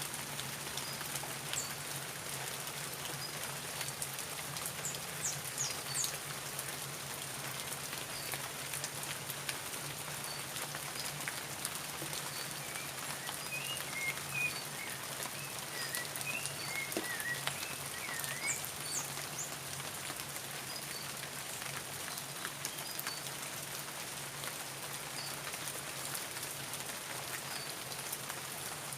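Steady rain falling, with many individual drops pattering and dripping. A bird chirps a quick series of short notes midway through, with a few fainter high chirps scattered throughout.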